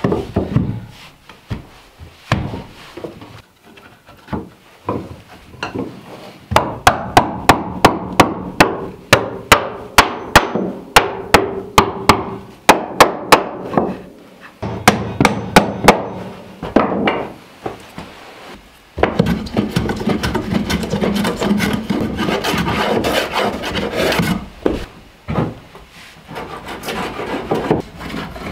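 Claw hammer driving nails into the pine lid of a wooden box: a long run of sharp strikes, about three a second, with short pauses. Later a steady rasping of a hand tool working wood.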